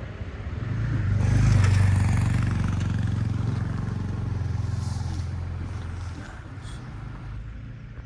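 A motor vehicle's engine running, swelling to its loudest about two seconds in and then slowly fading away, like a vehicle going past.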